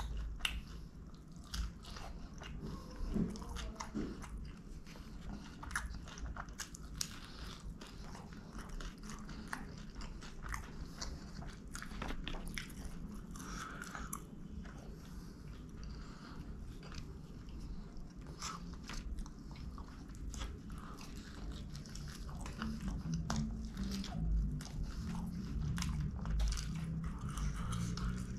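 Close-up chewing and crunching of a crisp thin-crust Pizza Hut Melts pizza, with many sharp crunches scattered throughout.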